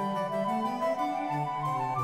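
Background instrumental music: a quick melody of short notes stepping up and down over a moving bass line.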